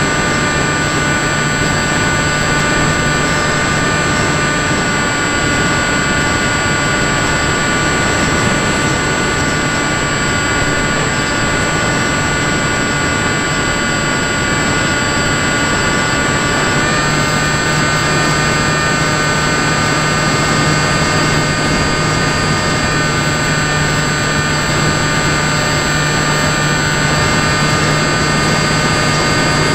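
Model airplane's motor and propeller heard from its onboard camera: a steady multi-tone whine over rushing air. The pitch steps up slightly a little past halfway, a small throttle change.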